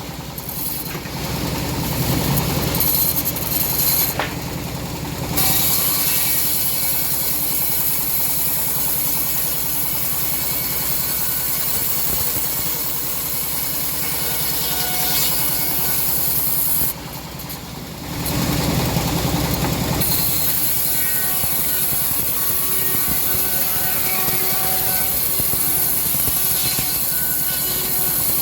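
Homemade bandsaw mill sawing through a hard teak log: a steady machine hum under a bright, hissing blade-cutting noise. The cutting noise drops away briefly twice, once about four seconds in and again about seventeen seconds in.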